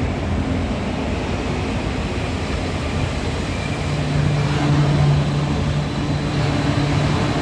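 Taipei Metro Wenhu line rubber-tyred train running at the station: a steady rumble, with a low electric hum that comes in about halfway through and grows louder.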